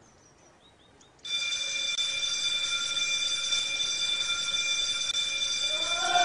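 Bells ringing steadily and continuously. The ringing starts suddenly about a second in, after near silence.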